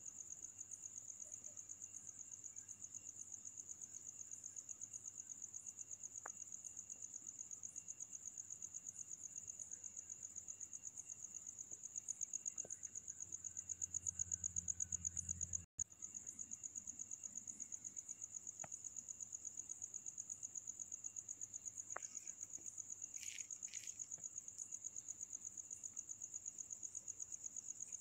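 A steady, high-pitched insect trill that pulses evenly throughout. It cuts out for an instant about halfway through.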